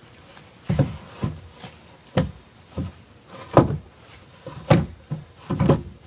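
Wooden log knocking and thudding against the logs beneath it as it is set and shifted into place on a stacked log wall: about seven separate, irregular knocks.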